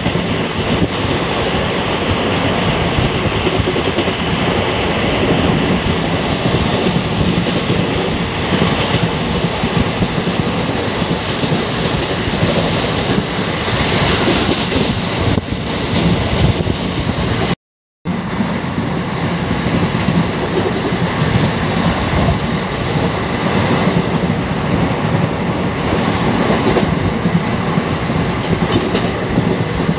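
Running noise of a moving passenger express train heard from inside a coach through its open barred window: a steady rumble and rattle of wheels on the rails. The sound drops out completely for a moment a little past halfway.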